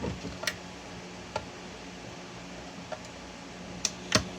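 Scattered sharp plastic clicks and snaps, about six in four seconds with the loudest two near the end, as PLA support material is picked and broken off a 3D print with a tool. A steady low hum runs underneath.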